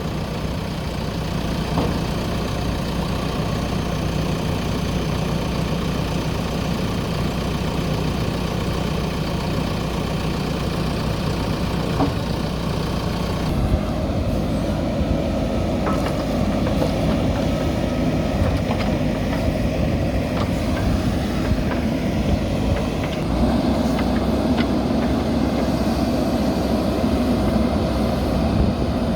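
Diesel engine of a JCB backhoe loader running steadily, its note changing about halfway through, with a few faint knocks.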